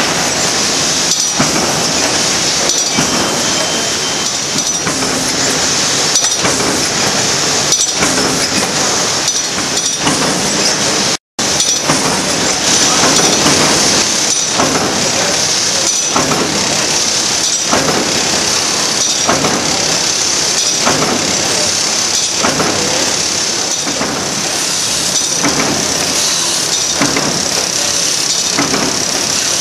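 Automatic wire comb binding line with an inline single-knife spine trimmer running. A steady mechanical clatter carries sharp metallic clanks roughly once a second as the machine cycles through book blocks. The sound breaks off for an instant about eleven seconds in.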